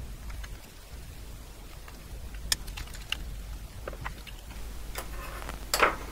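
Small metallic clicks and ticks as screws are backed out of the black metal chassis of an HP 9830A tape drive with a screwdriver and set down on a wooden bench. The clicks come a few times, spaced out, with a louder clatter of metal near the end.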